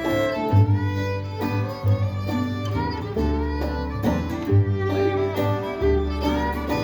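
An acoustic string band plays an instrumental break: a fiddle carries the melody in long bowed notes over strummed guitar and a steady low bass line.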